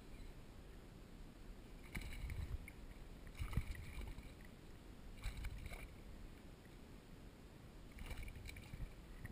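A hooked largemouth bass splashing at the surface among lily pads: a few short splashes, muffled through a waterproof camera housing.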